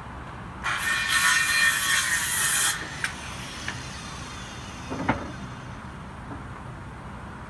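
A power saw cutting wood for about two seconds, then a few short knocks.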